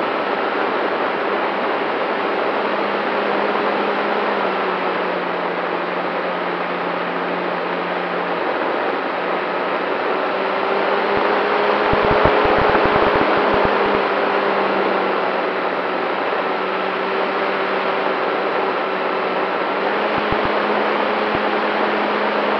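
A radio-controlled model Cessna 188 in flight, heard from on board: steady wind rush over the airframe with the hum of the motor and propeller. About halfway through the hum rises slightly in pitch and the whole sound grows a little louder, with brief low wind buffeting on the microphone then and again near the end.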